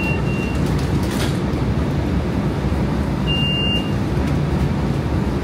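Steady low rumble inside a Siemens S700 light-rail trolley car, with two short high beeps: one at the start and one about three seconds in.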